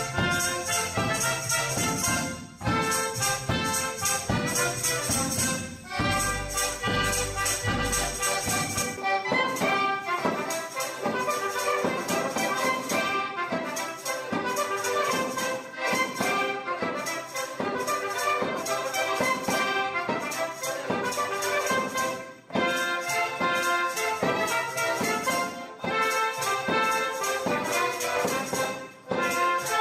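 Polish village folk band playing an instrumental oberek, a fast triple-time dance tune, on trumpet, clarinet, accordion, double bass, drum and tambourine, with an even, driving beat.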